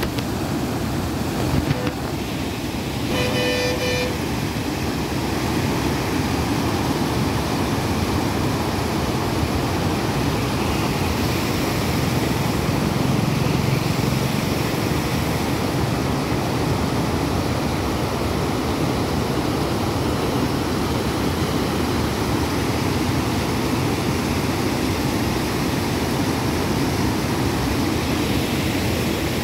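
Water rushing steadily over a long stepped weir and through a shallow rocky channel below it. About three seconds in, a short pitched beep sounds over the rush.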